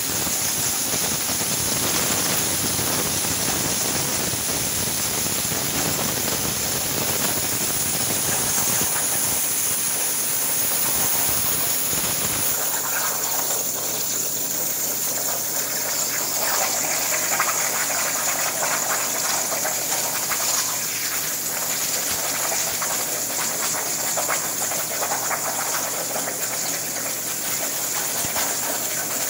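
Hypertherm plasma cutter's arc cutting steel plate on a CNC table: a loud, steady hiss with a high whine on top. About twelve seconds in, the deeper part of the sound drops away.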